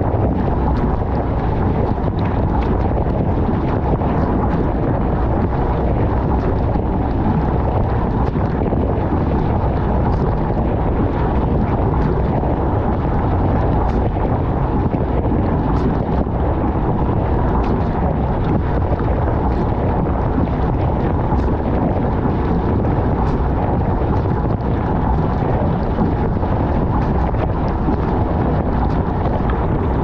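Dishwasher in its wash cycle heard from inside the tub: water jets from the spray arms pelting the dishes and racks in a steady, dull rush, with light ticks of droplets striking.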